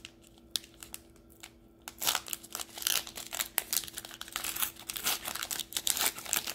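Shiny foil wrapper of a basketball trading-card pack crinkling as it is torn open by hand. The crackling starts about two seconds in and goes on as a busy run of sharp crinkles.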